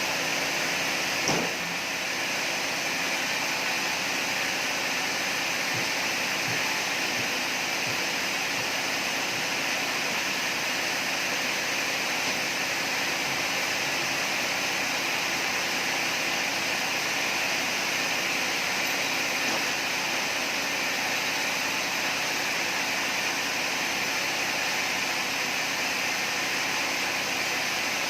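Sawmill machinery running steadily, a constant even noise, with a single knock about a second in.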